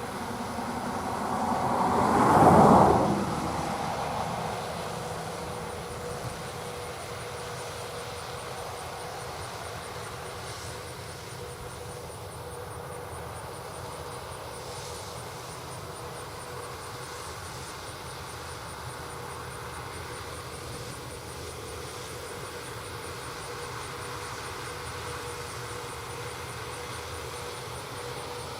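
Tractor-drawn peanut harvesting machinery passing close by, rising to a peak and fading over about three seconds near the start. It then settles to a steady machinery hum with a constant whine underneath.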